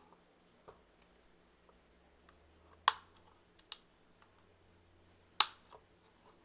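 Plastic glue guards snapping into the plastic caps of a fly trap stick: a few sharp clicks, the loudest about three seconds in and again about five and a half seconds in, with lighter clicks between.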